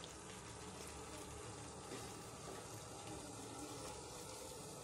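Faint, steady sizzle of a thick masala gravy cooking in a pot.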